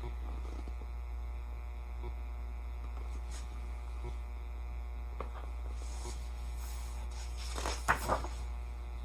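Steady low electrical mains hum with faint room tone and a few soft ticks, and a brief soft sound a little before the end.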